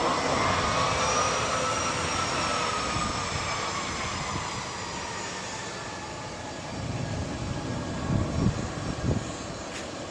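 Bombardier CRJ-200 regional jet's twin GE CF34 turbofans whining over a jet rush as it taxis, the whine tones gliding slowly lower and the sound fading. A couple of low bumps near the end.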